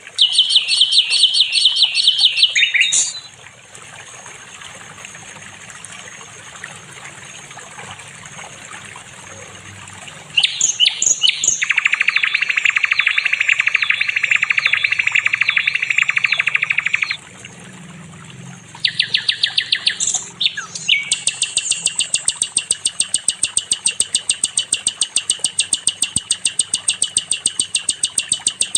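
Songbird singing in long, very fast trills of repeated high notes, with stuttering phrases between them and a quieter lull of faint background from about 3 to 10 seconds in. The song is played as a training song for caged songbirds.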